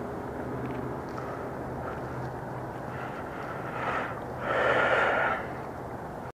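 Steady outdoor background with a low, even hum, and about four and a half seconds in a loud breath close to the microphone that lasts about a second.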